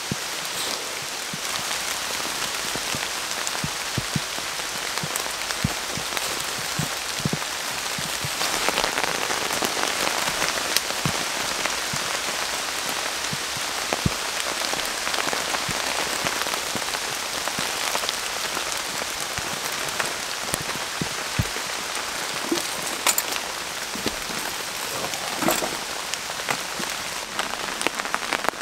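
Heavy rain falling steadily, with sharp drop impacts scattered through it.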